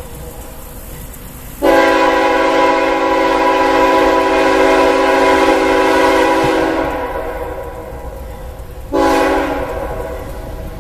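CSX freight locomotive's air horn sounding a long blast of about five seconds, then a short blast a couple of seconds later, as in a grade-crossing horn signal, over the low rumble of the approaching train.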